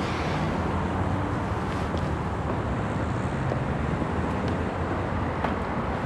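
Steady outdoor road-traffic noise: an even low rumble with a few faint ticks.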